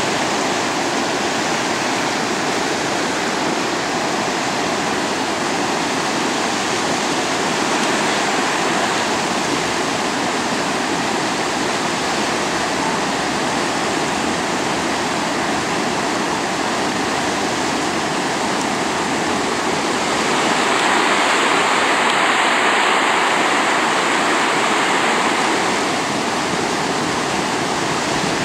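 Rushing water of river rapids, a steady noise that swells louder about two-thirds of the way through and then eases back.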